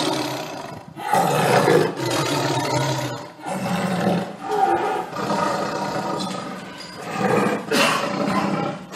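Tiger roaring, several long roars one after another.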